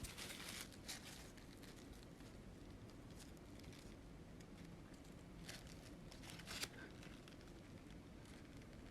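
Near silence: room tone with a few faint rustles and clicks, one about a second in and a couple more a little past the middle.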